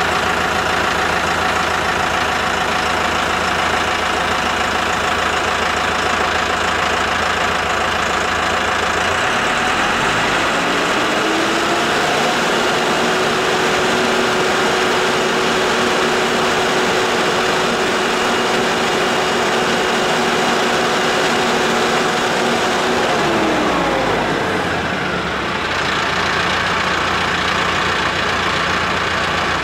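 Mahindra 8560 tractor's diesel engine running; about ten seconds in it revs up and holds at high speed for about eleven seconds while the loader lifts a semi truck against the load cell, then drops back to a lower speed near the end.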